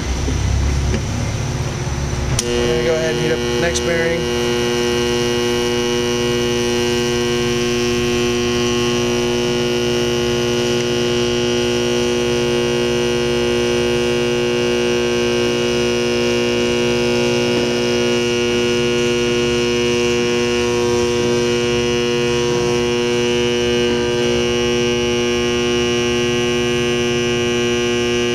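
Induction bearing heater switched on about two seconds in, then giving a loud, steady electrical hum as it heats a bearing so that it will expand and slide onto the shaft.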